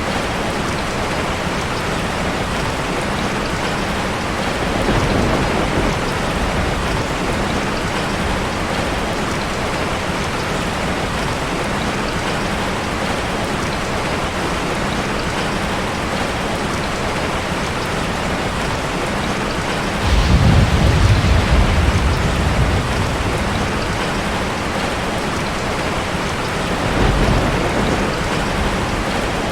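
Steady rain falling, with rolls of thunder: a low rumble about five seconds in, a louder one that starts suddenly about twenty seconds in and lasts a couple of seconds, and a shorter rumble near the end.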